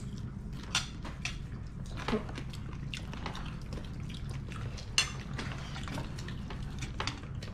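Dinner-table sounds: scattered light clicks and taps of forks on plates and the small mouth sounds of eating, over a steady low hum.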